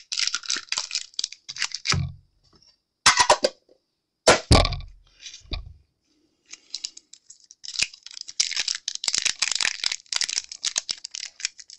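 Foil wrapper of a Pokémon booster pack crinkling as it is handled, with a few dull knocks about two to five seconds in. From about eight seconds in comes a long stretch of dense crinkling and tearing as the foil pack is torn open.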